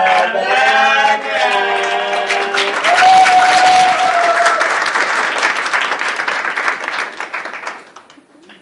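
A group singing a 'la la la' chorus to clapping, ending on a long held note about three seconds in, followed by audience applause that dies away near the end.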